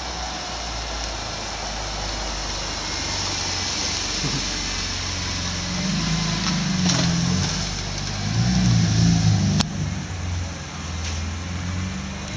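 Wiesmann MF3's BMW straight-six running at low revs as the car drives slowly past, getting louder a little past halfway through, with one sharp click shortly after.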